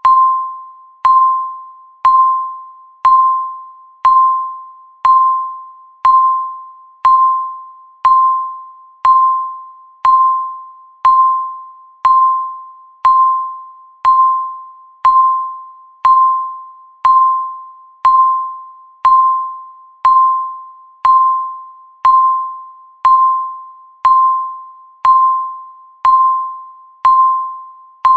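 Countdown timer's electronic beep, one mid-pitched chime-like tone struck once every second, each fading away before the next.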